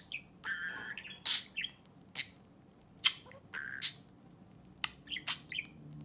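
Budgerigar chattering: a string of short, sharp chirps and a few brief warbled notes, spaced irregularly with short pauses between them.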